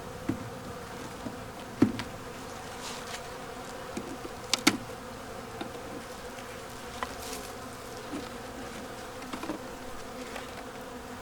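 Honeybees buzzing steadily in a hum around an open hive, with a few sharp knocks, the loudest about two seconds in and a quick pair about four and a half seconds in.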